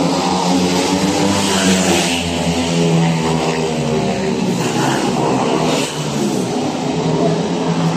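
Several speedway motorcycles' 500 cc single-cylinder methanol engines racing on a shale track. Their notes overlap and waver up and down in pitch as the riders hold the throttle through the laps.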